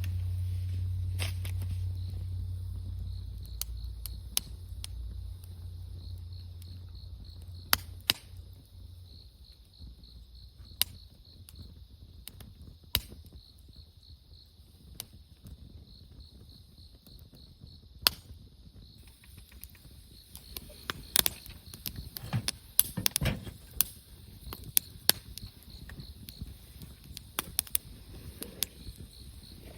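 Wood campfire crackling: sharp single pops, a few seconds apart at first and coming more often in the last third. Steady insect chirping runs underneath, and a low rumble fades out over the first few seconds.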